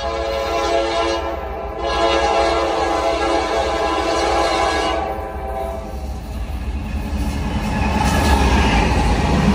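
Locomotive horn sounding: a short blast, then a longer one lasting about four seconds. The horn stops about six seconds in and the rumble of the passing train swells up.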